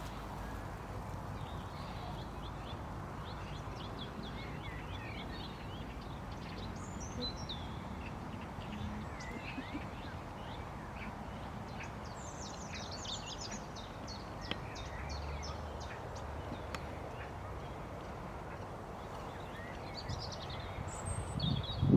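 Small birds chirping and twittering in short high calls over a steady low background noise, with a flurry of calls about halfway through.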